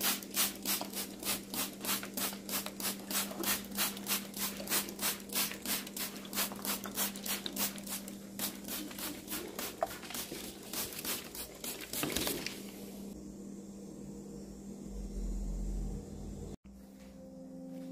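Handheld trigger spray bottle misting water onto plant leaves, squirt after squirt at about three a second, stopping about twelve seconds in.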